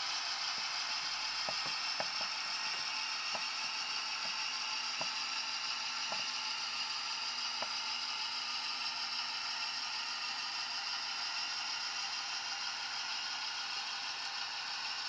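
H0 scale model train running on the layout: a steady high whir from the locomotive's motor and gearing, with a few sharp clicks of the wheels on the track in the first half.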